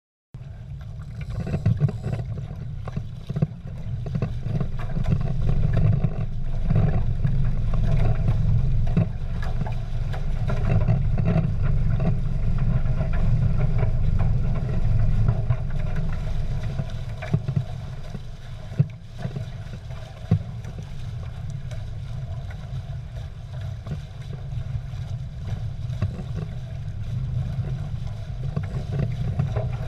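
A Prindle 16 catamaran's hulls rushing and splashing through choppy water, heard as a steady low rumble on the boat-mounted camera. There are two short knocks about two-thirds of the way through.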